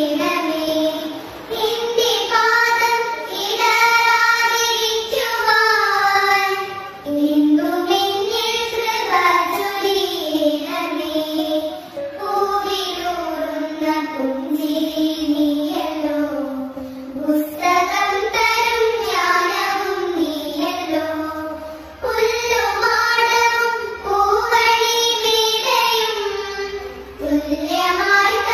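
A child singing a melodic song, one high voice carrying the tune in long phrases with short breaks between them.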